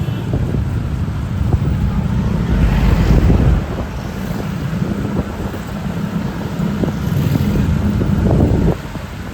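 Wind buffeting the microphone over roadside traffic noise, a heavy low rumble loudest about three seconds in that drops away suddenly near the end.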